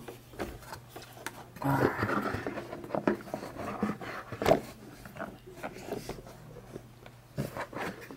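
Handling noise of a BlackBerry PlayBook tablet and its soft slip case: rubbing and rustling, loudest about two seconds in, with scattered light knocks.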